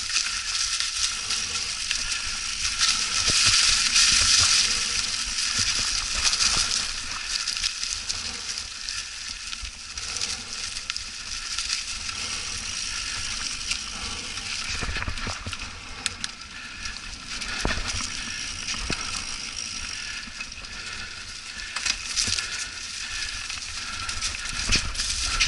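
Mountain bike tyres rolling over dry fallen leaves on a trail, a steady crackling crunch, loudest a few seconds in, with a few sharp knocks from the bike over bumps.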